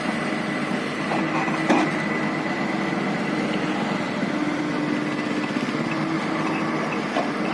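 Komatsu PC210 excavator's diesel engine running steadily, with a single short knock about two seconds in.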